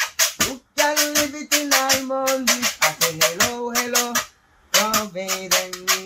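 A guacharaca, a ridged cane scraper, rubbed with a wire fork in a quick, even rhythm of about five scrapes a second. A man's voice holds sung notes over it. Both stop briefly a little past the middle, then carry on.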